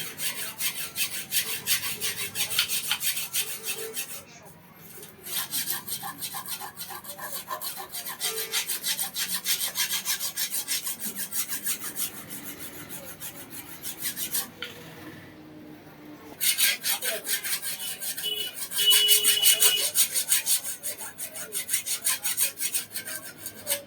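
A steel file rasps along a newly forged iron boti blade in quick back-and-forth strokes to shape and sharpen the edge. The filing comes in three bouts with brief pauses about four seconds in and around fifteen seconds.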